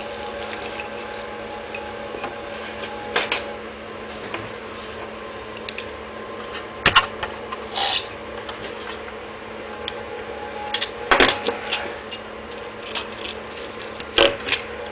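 Knife blades scraping and cutting at the worn abrasive cloth flaps of an angle-grinder flap disc, trimming off the worn edge. Irregular rasping strokes and sharp clicks, the loudest about seven and eleven seconds in, over a steady hum.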